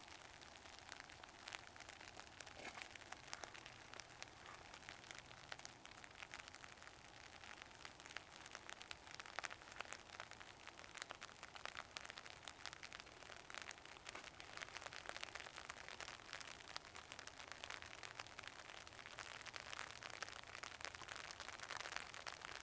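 Faint, steady rain: an even hiss made of many small drop ticks.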